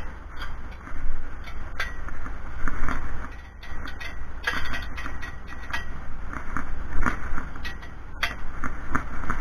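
Scattered light clinks and knocks of hand tools and metal bracket parts being handled during assembly of a microwave antenna mounting bracket, over a steady low rumble.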